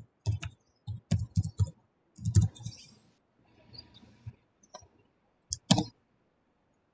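Keystrokes on a computer keyboard as a password is typed: irregular taps with a dull thud to each, bunched in quick runs, with two sharper clicks a little over five seconds in.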